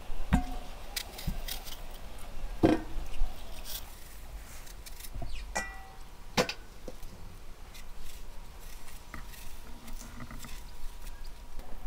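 Fruit being peeled and cut by hand with small knives, with several sharp clinks and knocks against stainless-steel bowls, a few of them ringing briefly.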